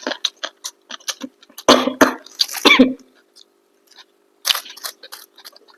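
A person with a cold coughing: two harsh bursts about half a second apart, the second trailing off in a falling voiced tail. Small clicks of eating come before and after.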